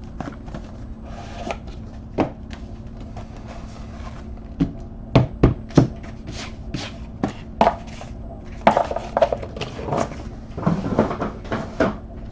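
A trading-card hobby box being opened and its cards handled on a tabletop mat: scattered sharp clicks, taps and knocks, the loudest three in quick succession about five seconds in, then a quick run of taps and rustles near the end.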